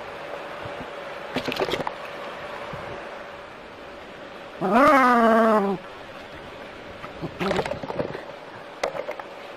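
An animal's single long cry, about a second long and rising then falling in pitch, about halfway through. Short scuffling bursts come before and after it, over a steady hum.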